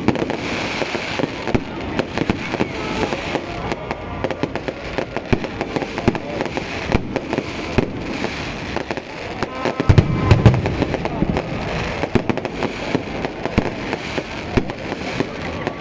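Fireworks going off: a continuous run of sharp pops and crackles, with one heavy, deep boom about ten seconds in.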